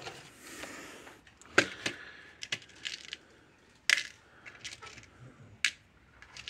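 Small self-tapping screws clinking in a box of screws as it is handled: a scatter of sharp metallic clicks, the loudest about one and a half and four seconds in.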